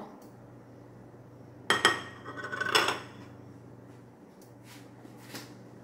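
A few sharp clattering knocks, about one and a half to three seconds in, as a plastic ladle and a plate are set down on a kitchen countertop, over a faint steady low hum.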